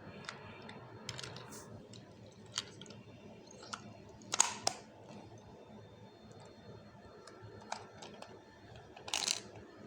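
Small hard plastic clicks and clacks from a Polly Pocket playset being handled, a scattering of light taps with a louder clack about four and a half seconds in and another near the end.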